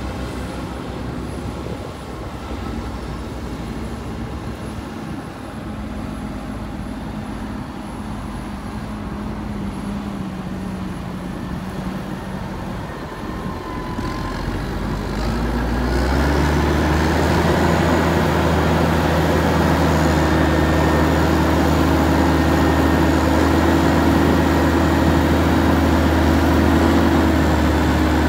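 New Holland W170D wheel loader's diesel engine running as the machine pushes silage over a clamp, its pitch dipping slightly about ten seconds in. From about fifteen seconds a Massey Ferguson 8480 tractor's diesel engine takes over, much louder and closer, rising in pitch and then running steadily at raised revs while the tipping trailer body is lifted.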